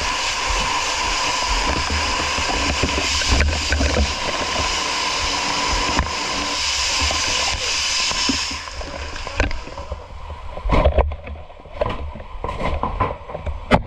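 Water spraying from a fire hose in a steady, loud hiss. It cuts off about eight and a half seconds in and gives way to scattered splashes and knocks.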